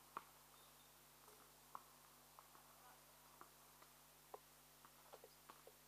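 Near silence: a faint steady hiss and hum, with scattered faint short ticks and chirps.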